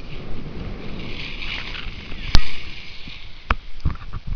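Rushing wind noise on a handheld camera's microphone, with a sharp click a little over two seconds in and another about a second later. Near the end come uneven crunching footsteps in snow.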